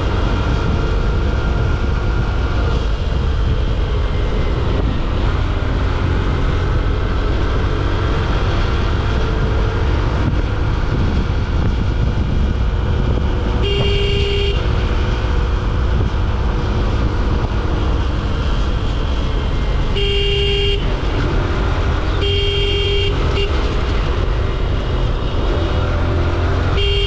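Steady rumble of a motorcycle's engine and wind while riding along at road speed. A horn honks four short times: once about halfway through, twice more a few seconds later, and once at the very end.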